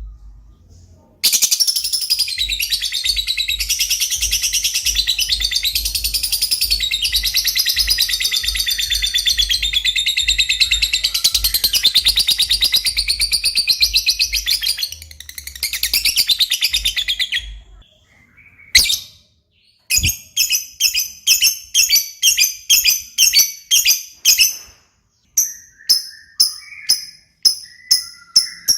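Lovebird chattering in a long, unbroken high-pitched trill for about sixteen seconds, then giving a run of sharp repeated chirps about two a second: the non-stop singing that bird keepers call 'gacor'.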